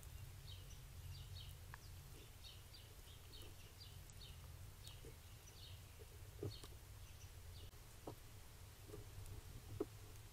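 Small songbirds chirping, a quick run of short high notes repeated many times and thinning out near the end, over a faint steady low hum, with a few soft taps, the clearest about two-thirds of the way in and just before the end.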